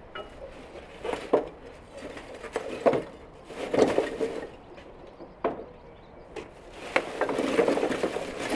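Lumps of charcoal knocking and clattering into a steel barbecue grill from a sack: a few separate knocks, then a thicker, continuous clatter from about seven seconds in as the sack is tipped out.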